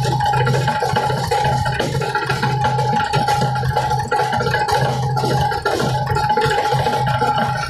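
Background music with percussion and a steady held tone.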